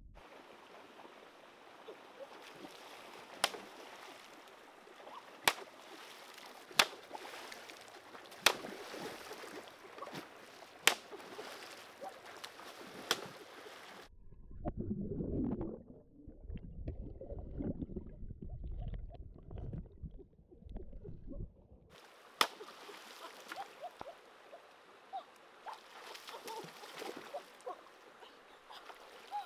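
Water sounds in a shallow rocky stream: first a hiss recorded under the water with about six sharp clicks of stones knocking, then a muffled low rumble for several seconds, then running water and splashing as hands work in the stream.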